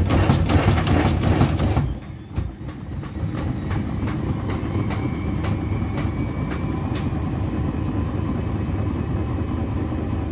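Beko front-loading washing machine drum turning a heavily sudsy load of jackets and a blanket. For the first two seconds water sloshes loudly and the load knocks. Then the motor whine rises in pitch as the drum speeds up and settles to a steady tone, with a regular knock each turn that fades out.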